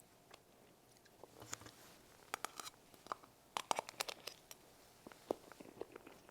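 Close-miked eating sounds: chewing and wet mouth clicks while eating strawberry cream cake, a quick run of sharp clicks and crackles that bunches up in the middle.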